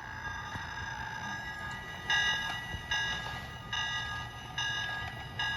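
Toy Hogwarts Express train set running on its track: a steady low hum, and from about two seconds in a run of short electronic tones, roughly one a second.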